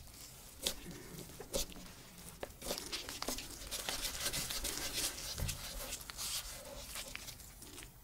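A ball of dough being rolled and rounded under a gloved hand on a wooden tabletop: a dry rubbing and rustling of glove and dough against the wood, with two light taps in the first couple of seconds.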